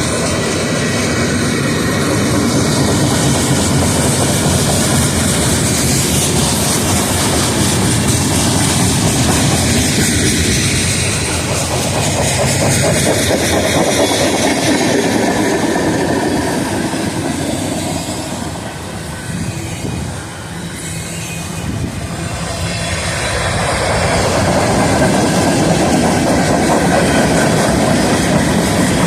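Freight train cars rolling past, wheels clacking over the rail joints with a steady rumble. The noise eases briefly about two-thirds of the way through, then builds again.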